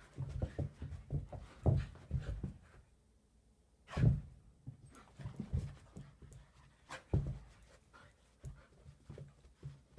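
An adult dog and a puppy play-wrestling: panting and short bursts of low dog noises come in quick runs. Louder knocks of bodies or paws land about four seconds in and again near seven seconds.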